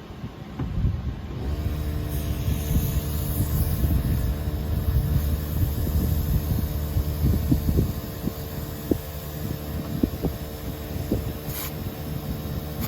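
Low rumble of a motor vehicle engine with a steady hum, strongest from about a second and a half in to about eight seconds, with scattered small clicks and knocks over it.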